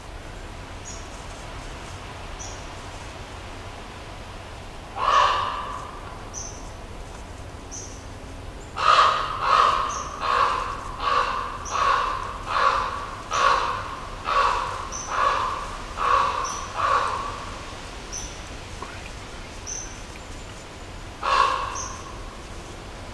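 A crow cawing: a single caw about five seconds in, then a quick run of a dozen or so harsh caws over about eight seconds, and one more caw near the end. A faint, short, high chirp repeats about every second and a half.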